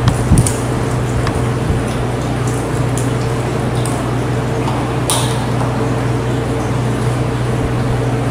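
Liquid poured from a carton into an empty plastic Vitamix blender jar, splashing around the blade as it fills. A steady low hum runs underneath, with a couple of knocks right at the start and a sharp click about five seconds in.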